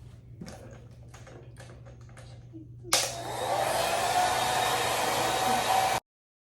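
Faint handling clicks, then a handheld hair dryer switched on about three seconds in, blowing with a steady whine. It cuts off suddenly near the end.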